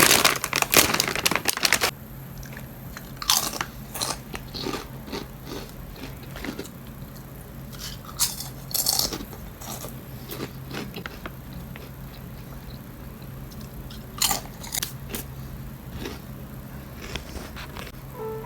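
Crinkling and crackling from plastic and squishy toys being handled. The crackles come thick for the first two seconds, then scattered.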